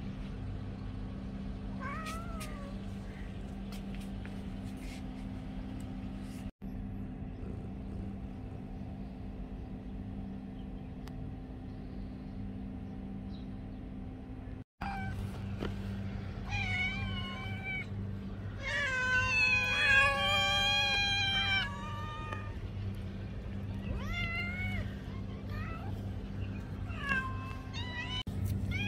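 Domestic cat meowing for food. One short meow comes about two seconds in, then a run of repeated meows from about halfway, the longest and loudest drawn out for a couple of seconds. A steady low hum runs underneath.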